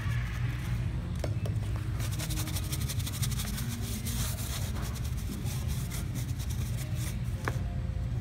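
A pencil point scratches quickly into foam scenery for a couple of seconds around the middle, carving rock strata, over a steady low rumble.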